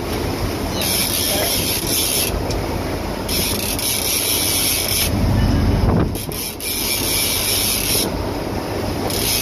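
Big-game fishing reel being cranked in repeated stretches of a second or two, pump-and-reel style while fighting a fish. Underneath runs the steady rumble and rush of the boat's engine and wake, which swells about five to six seconds in.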